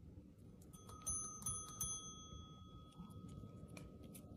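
Chrome desk service bell struck three times in quick succession about a second in, its bright ring lingering and fading over the next couple of seconds.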